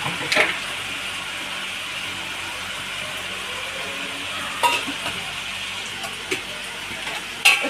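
Chicken frying with spices in a pot, a steady sizzle, with a few sharp knocks of the stirring utensil against the pot. This is the stage where the chicken is sautéed (bhuna) with the chilli and salt just added.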